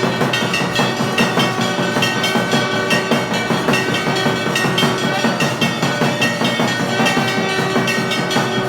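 Aarti at a Hindu temple: rapid, continuous clanging of bells and drumming, with steady ringing tones over it.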